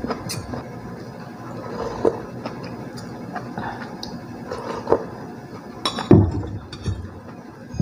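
Metal spoon clinking against a stainless steel soup bowl while someone eats, with a few scattered clinks and a louder clunk about six seconds in.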